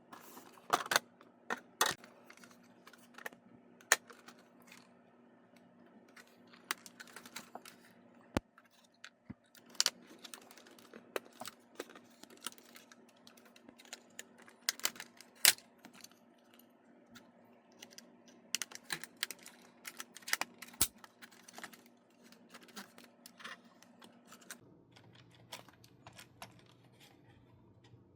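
Irregular light clicks and taps of small hard plastic parts being handled, like the parts of a toy RC car taken from its box, over a faint steady hum that drops lower about 24 seconds in.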